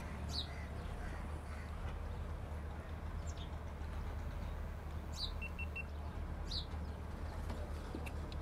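A steady low rumble with birds chirping several times in short, high, falling calls. About five and a half seconds in, a GoPro Hero 10 gives three quick beeps as it powers on.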